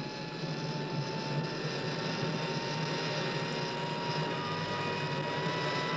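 Steady electric hum of a mini-submarine's motors and onboard equipment, with a few constant whining tones over a low drone.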